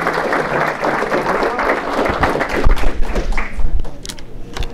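Audience applauding, thinning out over the last second or so, with a few heavy low thumps about halfway through.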